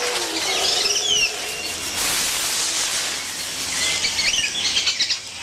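Leaves and branches rustling as uakari monkeys move through the canopy, with short high chirping calls, a quick run of them near the end.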